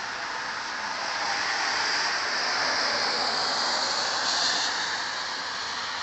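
Tyres hissing on a wet, slushy road as a vehicle passes: a swelling hiss that peaks about four seconds in and then fades.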